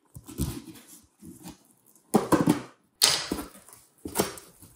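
A cardboard shipping box being opened: a knife slitting the packing tape, then the flaps pulled back and crumpled kraft packing paper rustling, heard as a run of short, irregular scrapes and crackles.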